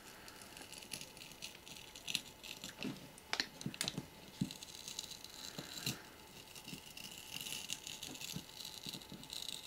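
Fingers picking at and peeling a soft pad off the metal lid of a small electronic module: scattered small clicks, taps and scrapes.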